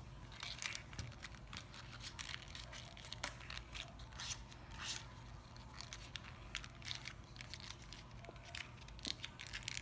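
Folded origami paper crinkling and rustling in many small, irregular crackles as it is twisted by hand into a rose.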